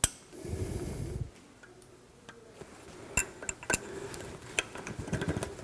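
Small metallic clicks and scraping as a wire anti-rattle pad spreader spring is worked into place on a Toyota Land Cruiser front brake caliper: a sharp click at the start, a second of scraping shortly after, then scattered clicks from about three seconds in, coming faster near the end.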